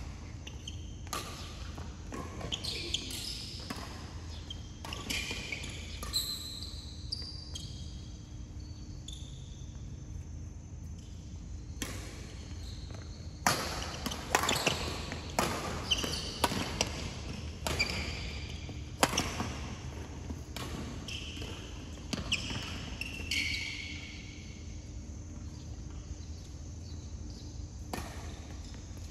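Badminton rackets hitting a shuttlecock again and again in rallies, with shoes squeaking on the court floor; the hits come thick and fast from about halfway through.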